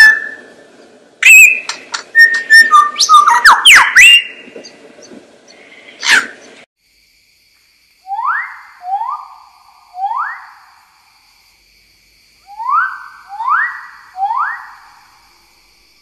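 Lyrebird song: a rapid, varied run of whistles, squeaks, sharp clicks and sliding notes that stops abruptly about six and a half seconds in. After a short gap, a second bird gives six loud rising whistled notes in two groups of three, over faint steady high tones.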